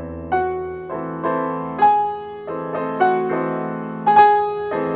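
New Steinway & Sons Model B grand piano played with both hands: chords struck every second or so, each ringing on into the next over sustained bass notes.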